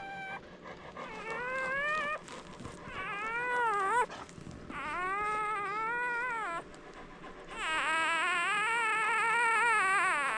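Newborn Labrador retriever puppy crying in high whines: four separate cries, each rising then falling in pitch, the last the longest at over two seconds, with a wavering pitch.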